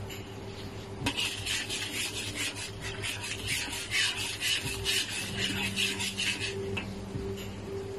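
Metal spatula scraping and stirring thin sauce in a metal wok, in quick back-and-forth strokes about four a second. The strokes start about a second in and stop near the end.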